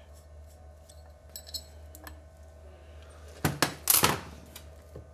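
Metal clinking and clattering as the case puller tool is taken off an Agni motor's casing: a few light ringing clinks, then two loud clattering knocks about three and a half and four seconds in.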